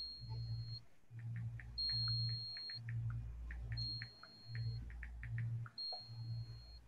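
Faint high electronic beep, about a second long, repeating every two seconds, over a low pulsing hum and scattered soft ticks.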